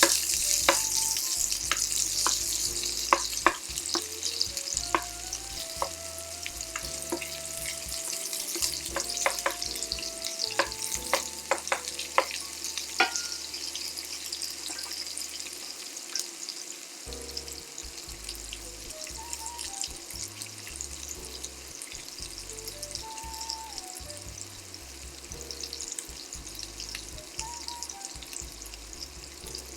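Sliced onions sizzling in olive oil in a frying pan, the hiss slowly growing quieter, with a few sharp clicks of a utensil stirring in the pan in the first half.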